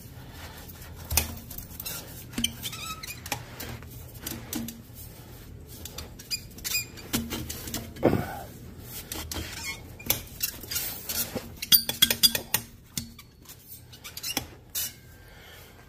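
Steel exhaust pipe sections knocking, clinking and scraping against each other as a slip-fit pipe is forced onto a motorcycle header: irregular metal knocks, thickest about three quarters of the way through. The pipe is too long to seat and needs about a quarter inch trimmed off.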